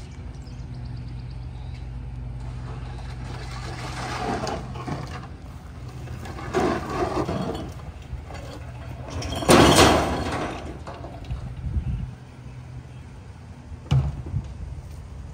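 Small Ford Super Duty garbage truck idling with a steady low hum, while trash is emptied into its rear hopper in several noisy bursts, the loudest about ten seconds in, and a sharp thump near the end.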